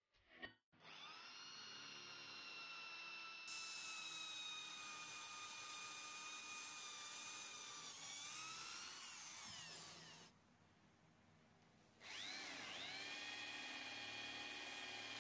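Electric hand drill boring through steel tubing: a steady motor whine that slowly sinks in pitch as the bit cuts into the metal. Near the middle it stops for about two seconds, then spins back up with a rising whine and runs on.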